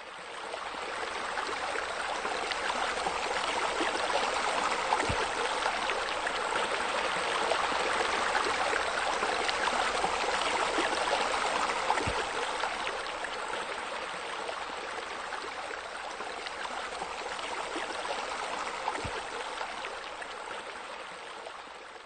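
Steady rush of running, splashing water with three faint ticks spread through it.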